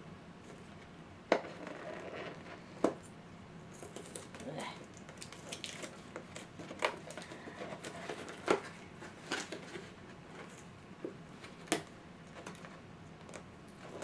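Packaging being handled and opened by hand: rustling and crinkling, broken by about five sharp clicks and knocks.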